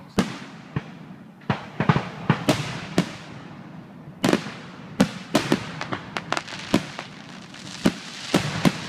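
Aerial fireworks shells bursting overhead: a rapid, irregular series of sharp bangs, some coming in quick clusters.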